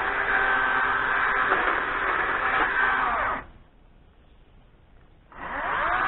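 Chainsaw cutting through brush at full speed. About three and a half seconds in it drops away to a low level for nearly two seconds, then speeds back up with a rising pitch.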